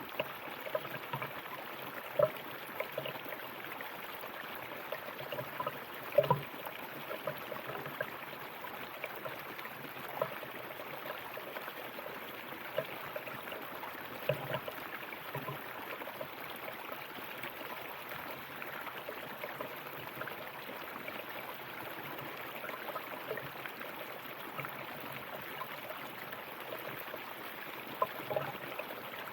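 River water flowing and babbling over stones: a steady rush with frequent small gurgles and splashes, a few of them louder.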